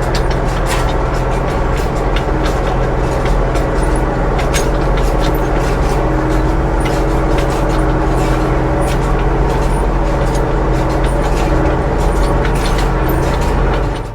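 Tractor engine running steadily under load while pulling a hay rake, with scattered clicks and rattles over the steady drone.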